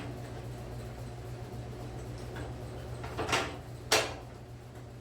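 Latch hardware being fitted on a metal lawn cart: a click, a short scrape about three seconds in, then a sharp click, over a steady low hum.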